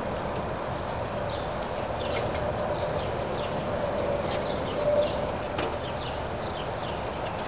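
Outdoor ambience: a steady rushing background noise with small birds chirping faintly and repeatedly over it.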